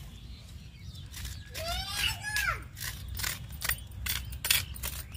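Knife cutting and scraping raw green papaya: a run of short, sharp scrapes and clicks, loudest about four and a half seconds in. A brief voice-like call that rises and falls comes about two seconds in.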